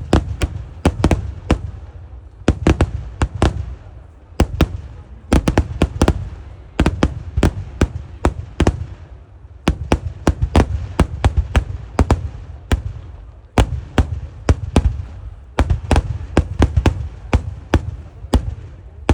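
Eeduvedi, the rapid-fire fireworks of a Kerala temple festival: sharp loud bangs in quick succession, several a second, coming in dense clusters with brief lulls between them.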